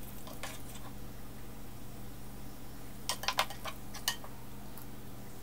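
Spatula stirring thick curry sauce in a stone-coated frying pan, with a few light clicks and knocks against the pan near the start and again around three to four seconds in, over a steady low hum.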